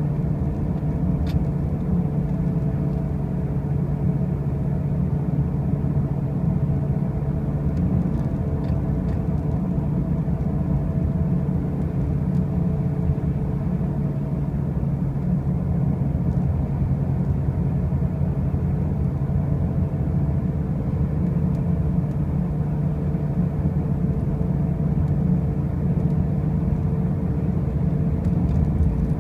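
2005 Pontiac Grand Prix being driven, with a steady low rumbling drone and a faint hum on top that hold level throughout. This is the loud noise when driving that the owner cannot explain, since the car already has brand-new wheel bearings and new tires.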